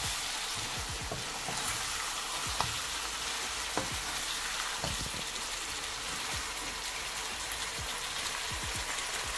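Chicken pieces, onions and vegetables sizzling in a nonstick pan, with short knocks and scrapes now and then as a wooden spatula stirs them against the pan.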